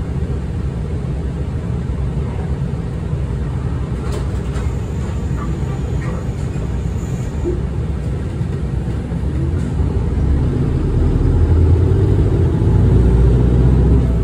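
Tokyu Bus city bus running: a steady low engine and road rumble that swells louder from about ten seconds in, with a few faint clicks around the middle.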